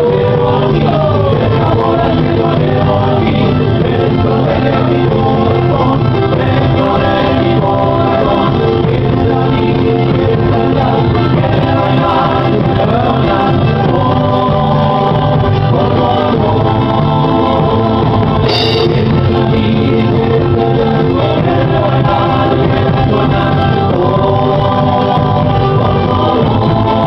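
Live Andean folk music: several voices singing together over instrumental accompaniment, loud and continuous. A single short click sounds about two-thirds of the way through.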